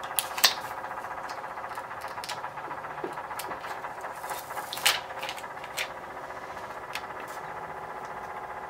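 Light clicks, taps and faint crinkles from a plastic sticker decal and its backing sheet being handled, peeled and laid onto a tumbler, with the loudest clicks about half a second in and just before five seconds, over a faint steady hum.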